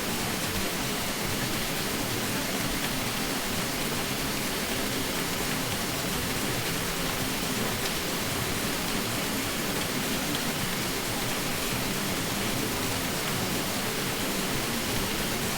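Continuous, even rushing noise, spread from low to high pitches, with no breaks, beat or rhythm.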